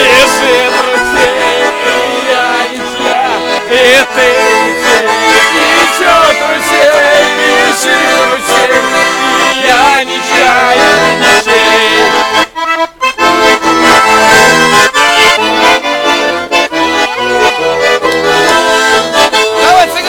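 Russian garmon (button accordion) playing a tune, with a brief break in the playing about twelve and a half seconds in.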